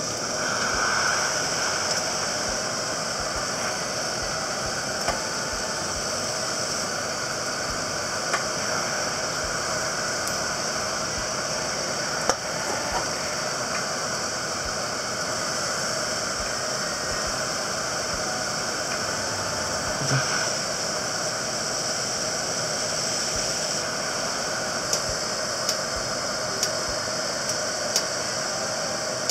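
Heat gun blowing hot air onto a CPU socket to reflow the solder paste under a replacement pin: a steady rushing hiss that comes on suddenly and holds level. A few faint light clicks sound over it.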